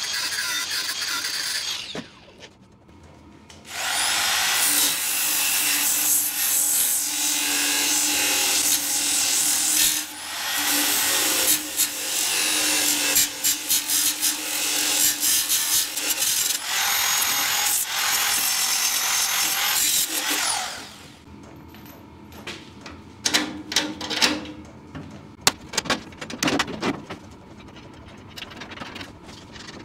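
An angle grinder cutting sheet steel for about two seconds, then a hand-held power tool working on the steel cab panels in three long runs, its motor spinning up and holding steady. After that come scattered light metal knocks and clicks as parts are handled.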